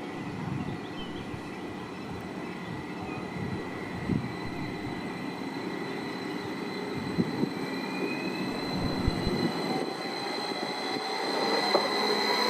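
A train approaching through a station, growing louder over the last couple of seconds, with a steady high-pitched whine over the rumble.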